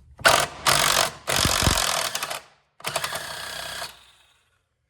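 Impact wrench run in four bursts, hammering at a bolt to break it loose; the last two bursts are the longest.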